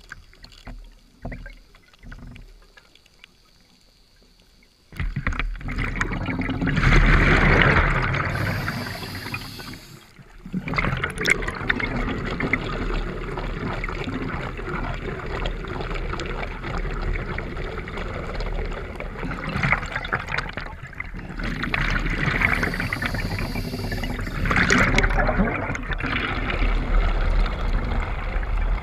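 Scuba diver breathing through a regulator underwater: a few small taps for the first five seconds, then a loud rush of exhaled bubbles that runs on, with a briefer higher hiss twice.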